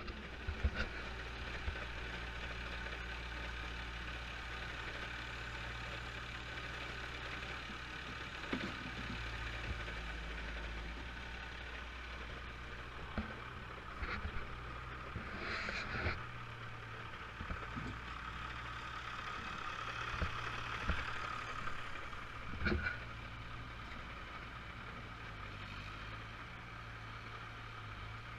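Diesel engines of a farm tractor and a Gehl 4840 skid-steer loader running steadily. The engine pitch steps up and down a few times as the loader works, with a few sharp knocks.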